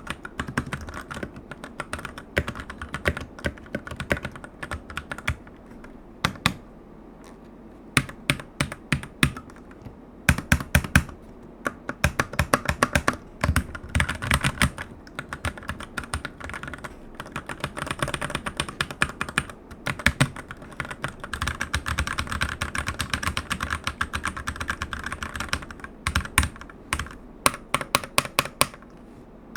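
Typing on a Keychron C2 Pro mechanical keyboard with brown switches: runs of fast key clacks, broken by a short pause about six seconds in and a brief one near the end.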